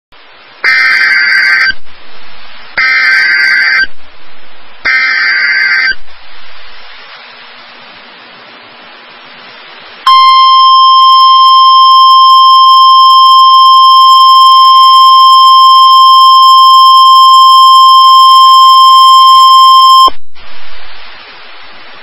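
NOAA Weather Radio Emergency Alert System transmission signalling a severe thunderstorm warning. Three short bursts of SAME header data, each about a second long, are followed by a few seconds of radio hiss. Then the steady warning alarm tone sounds for about ten seconds and cuts off into hiss.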